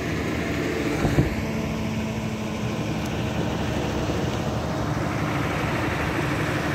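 Steady rushing noise of muddy floodwater flowing across a street, under a faint low hum, with a brief knock about a second in.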